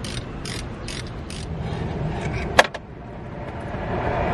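Ratchet wrench clicking about three times a second as it backs out a brake-line banjo bolt at the caliper; the clicking stops before halfway. A single sharp click comes a little past the middle.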